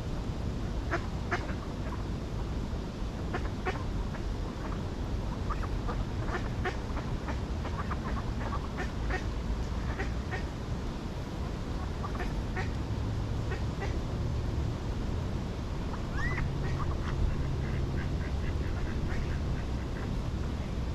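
Ducks quacking with other birds calling: many short, scattered calls over a low steady rumble.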